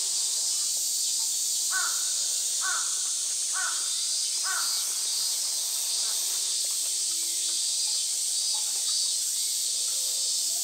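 A crow cawing four times, about a second apart, over a steady high-pitched insect drone.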